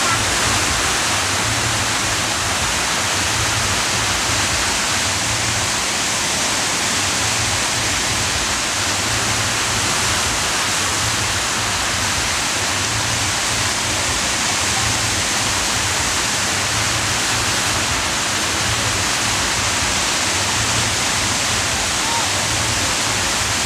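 Artificial sheet-wave surf machine: a thin sheet of water pumped at speed across the padded ride surface, making a loud, steady rushing hiss.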